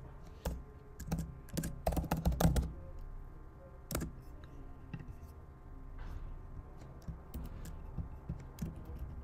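Typing on a computer keyboard: a quick run of keystrokes about two seconds in, then scattered single key clicks.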